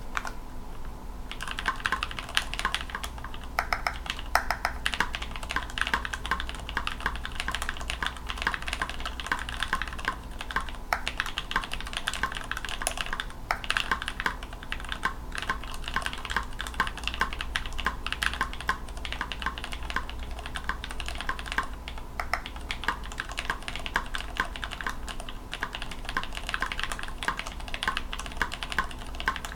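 Continuous typing on a mechanical keyboard with Kailh burgundy switch stems in retooled Cherry switch housings: a fast, irregular run of key clicks that starts about a second in, over a faint steady hum.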